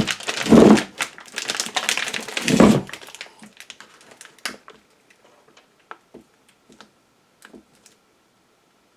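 Handling noise as strong neodymium block magnets are measured: about three seconds of dense clatter with two heavy knocks, then a few light scattered clicks.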